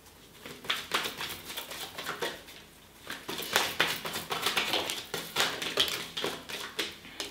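A deck of cards being shuffled overhand by hand: quick, irregular flicks and slaps of card on card. There is one short run, a brief pause about two and a half seconds in, then a longer run.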